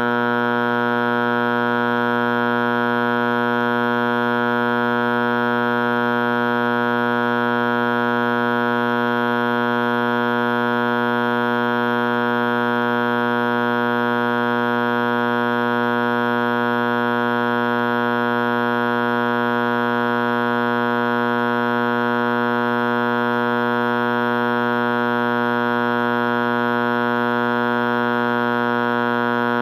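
IBM/Simplex 4030 fire alarm horn sounding continuously: a loud, steady buzzing tone that holds without pulsing or changing pitch.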